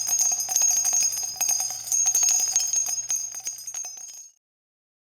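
Small jingle bells shaken in a rapid, continuous jingle that cuts off abruptly about four seconds in.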